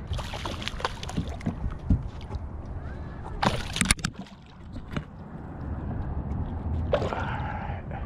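Hooked bass thrashing and splashing at the surface beside a boat, with a loud splash about three and a half seconds in as it is grabbed by hand.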